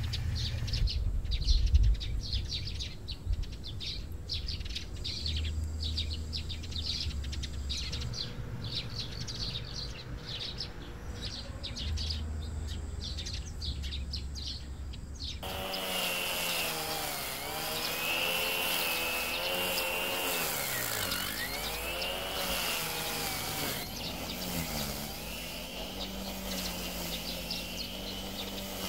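Birds chirping, with wind rumbling on the microphone. About halfway through, a sudden cut to a small engine running, its pitch sagging and recovering several times.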